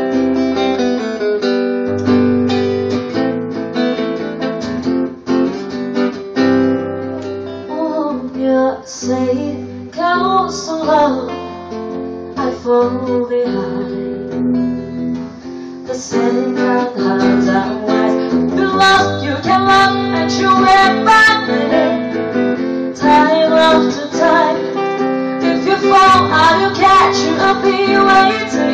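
Hollow-body electric guitar playing chords in a slow ballad, with a woman's solo singing voice coming in partway through and carrying the melody over it.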